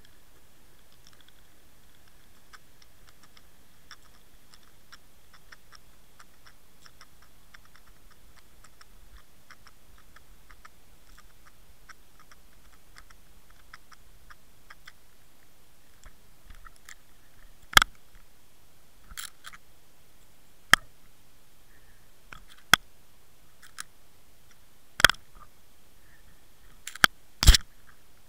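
Small ticks and knocks of fishing tackle against an underwater camera housing: a faint, steady patter of little clicks, then, about two-thirds through, a handful of sharp knocks a couple of seconds apart, the loudest near the end.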